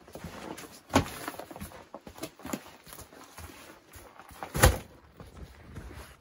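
Footsteps in rubber boots on a dirt floor with light rustling, and two sharp knocks, about a second in and, louder, about four and a half seconds in.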